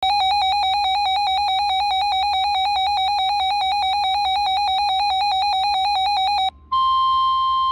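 Weather radio alert signal for a severe thunderstorm warning. A loud electronic alarm beeps in rapid pulses, stops after about six and a half seconds, and after a brief gap gives way to a steady single-pitched warning alarm tone.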